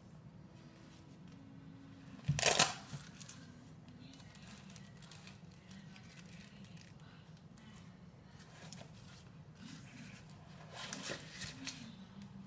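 Flap of a soft fabric binocular case ripped open, a short loud tearing rasp about two seconds in. Softer rustling of fabric and plastic follows near the end as the binoculars are lifted out of the case.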